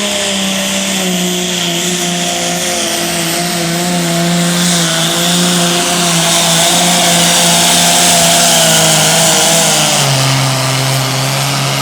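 Allis-Chalmers D21's six-cylinder diesel engine running hard under load while pulling the weight sled. Its note steps lower a couple of times and drops further about ten seconds in as the engine lugs down.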